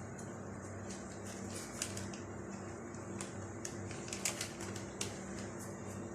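Scattered light clicks and taps, about half a dozen, as hot-pepper puree is scooped into a plastic freezer bag, over a faint steady hum.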